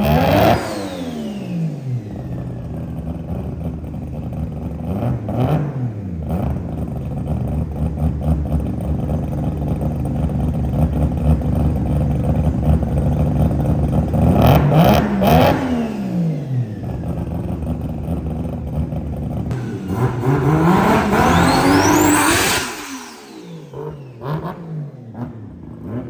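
Mazda RX-7's two-rotor Wankel engine, loud, running at a rough idle between free revs. It blips up and falls back near the start, about five seconds in and again about fifteen seconds in, then is held in a longer, higher rev about twenty seconds in before it drops back to a quieter idle.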